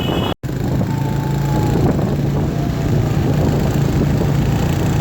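Motorcycle engine running steadily on the move, a low even hum under rushing wind noise. It drops out for an instant near the start.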